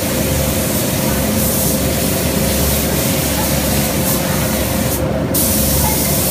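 Compressed-air paint spray gun hissing steadily as it sprays a cabinet, over a steady low hum; the hiss breaks off for a moment about five seconds in.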